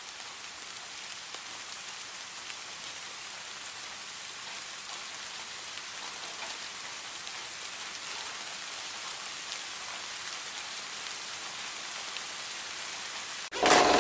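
Steady rain falling. Just before the end, a much louder steady tone cuts in suddenly.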